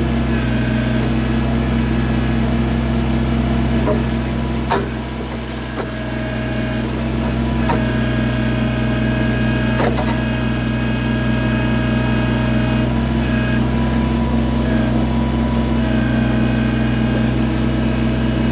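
Kubota BX23S compact tractor's three-cylinder diesel running steadily while its backhoe digs, with two sharp knocks about five and ten seconds in, typical of the bucket striking rock.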